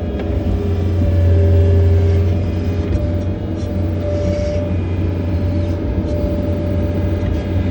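John Deere 317 skid loader's diesel engine running steadily, with a thin steady whine above the engine drone; it swells a little about a second in.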